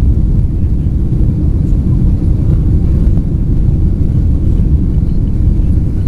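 Steady, loud low rumble of a Boeing 767-300ER's jet engines at takeoff power, heard from inside the passenger cabin.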